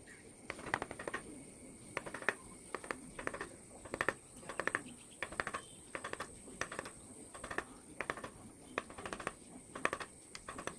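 Hand carving in teak: a carving chisel making repeated sharp taps and cuts into the wood, irregular, often two or three in quick succession.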